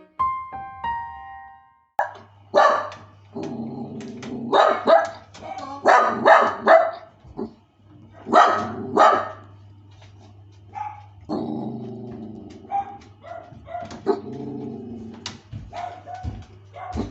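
Miniature dachshund barking in sharp bursts, with longer low growls in between: a warning, a dog rejecting a person's attempts to befriend it. A few piano notes play in the first two seconds.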